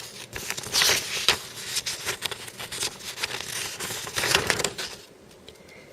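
A paper instruction sheet being unfolded and handled: rustling and crinkling, with scattered small clicks and taps. It dies down near the end.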